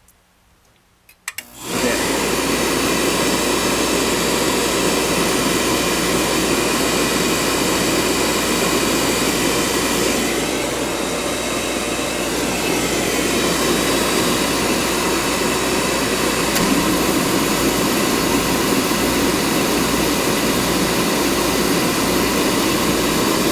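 Furnace burner lighting: a couple of clicks about a second in, then a sudden steady loud roar as the burner fires and runs. This is the heat-up stage, before the blower fan kicks in.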